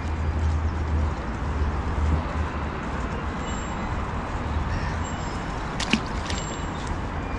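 A small perch dropped back into the water lands with a short splash near the end, over steady wind rumble on the microphone.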